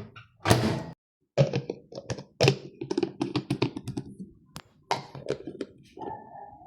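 Hands handling small objects: a quick, irregular run of taps, clicks and knocks, with a brief squeak near the end.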